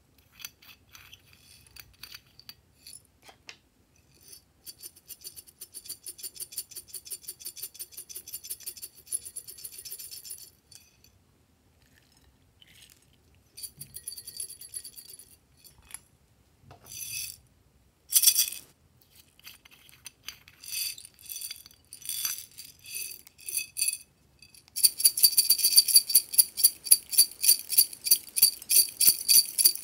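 Small plastic beads and sprinkles rattling as they are shaken out of a plastic container onto slime in a glass bowl: several bursts of fast clicking, the longest and loudest near the end.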